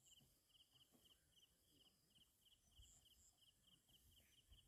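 Near silence with faint cricket chirping: short pulsed chirps repeating steadily, about three a second.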